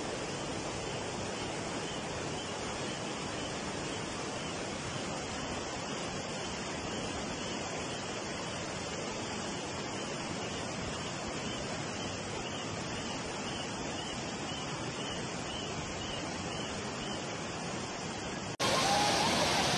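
Muddy floodwater rushing down a street as a torrent: a steady, even rush of water. Near the end the sound jumps suddenly louder.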